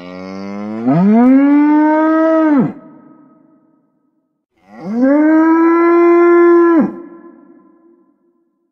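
Triceratops creature sound effect: two long animal calls. Each rises in pitch at the start, holds steady for about two seconds, then drops and cuts off, leaving a fading echo.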